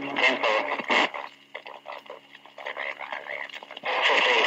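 Police radio traffic from a Dictabelt recording played back at half speed: slowed, low-pitched, garbled voices, with a steady hum in the gaps between transmissions. A louder stretch of speech starts near the end.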